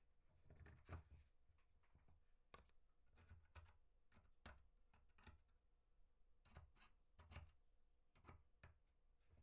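Near silence, with scattered faint clicks and small taps from a small metal glow engine and a thin metal hand tool being worked against a balsa engine mount.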